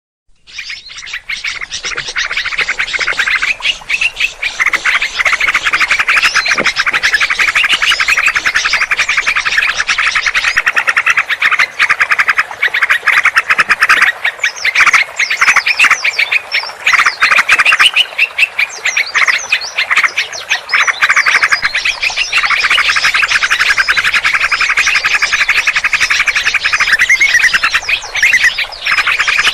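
Dense, continuous chorus of many small birds' rapid scolding and chattering calls, a mixed bird-lure recording of agitated alarm calls used to attract birds. It fades in over the first second or so.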